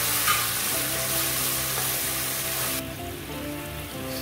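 Minced garlic sizzling in hot oil and sauce in a wok while being stirred with a wooden spatula. The sizzle drops abruptly to a softer, quieter frying about three seconds in.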